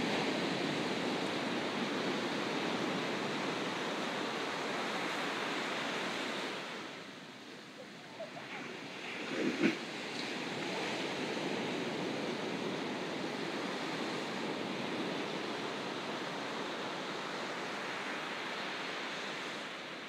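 Ocean surf washing steadily onto a beach. It eases off for a couple of seconds a third of the way through, then comes back with a short louder surge about halfway and settles into a steady wash again.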